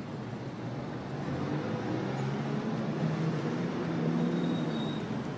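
City street traffic noise, with a vehicle engine running low and steady that grows louder from about a second in.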